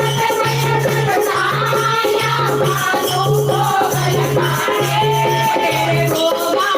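Kirtan music: a devotional bhajan sung over rhythmic rattling percussion, with a repeating low note pattern that stops near the end.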